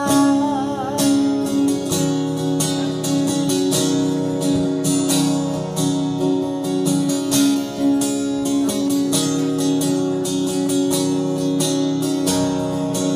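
Acoustic guitar strummed in a steady rhythm through a short instrumental passage. A held sung note with vibrato trails off about a second in.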